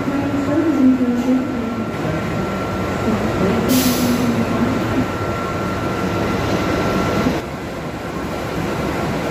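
A CC206 diesel-electric locomotive idling at a platform: a steady engine rumble with a thin steady whine over it that stops about seven seconds in. A short hiss comes about four seconds in.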